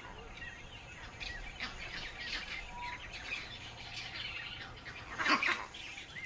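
Bush ambience of scattered bird chirps and short calls, with a louder call about five seconds in.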